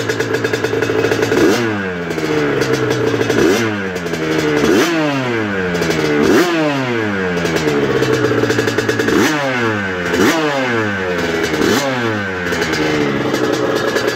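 Race-tuned Aprilia RS 125 with a Rotax 122 single-cylinder two-stroke engine, idling and then blipped on the throttle about seven times. Each rev snaps up and falls straight back, and the engine settles to idle near the end.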